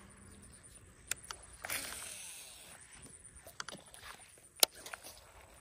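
Topwater bass fishing: a short splash on the water about two seconds in, then scattered sharp clicks from the rod and reel, the loudest about a second before the end.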